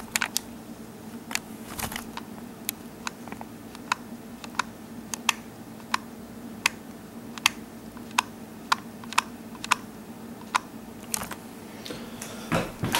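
Irregular sharp small clicks and taps, about one or two a second, from hands working on the laptop's plastic parts and cable connectors during reassembly. A faint steady hum sits underneath.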